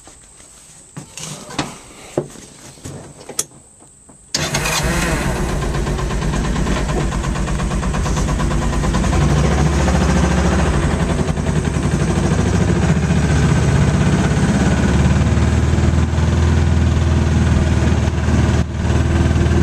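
A few clicks and knocks, then a vehicle engine starts abruptly about four seconds in and keeps running steadily at a loud level.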